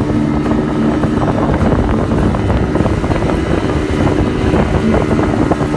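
Motorboat engine running steadily at speed, a constant drone, with wind buffeting the microphone.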